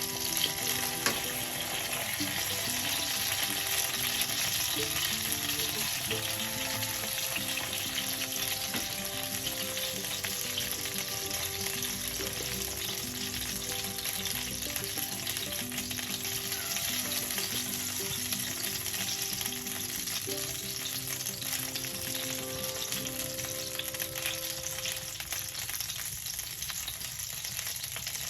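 Food sizzling steadily as it fries in hot oil in a pan, with a soft background melody playing alongside.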